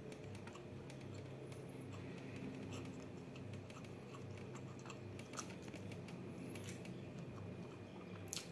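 Close-miked chewing of a mouthful of rice: soft, scattered mouth clicks over a low steady hum, with one sharper click near the end.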